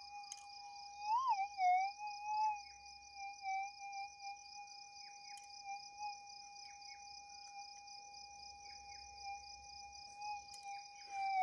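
Minelab GPX 6000 metal detector's steady threshold tone, which rises and warbles briefly about a second in as a scoop of dirt is passed over the coil: a target signal. Insects chirr steadily and high throughout.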